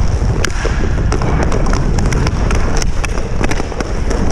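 Hockey play heard from a helmet-mounted GoPro: a steady low rumble of motion and air on the microphone, with frequent sharp clacks of sticks and puck.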